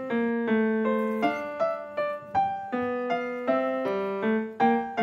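Background piano music: a melody of single notes, each struck sharply and then fading, a few notes a second.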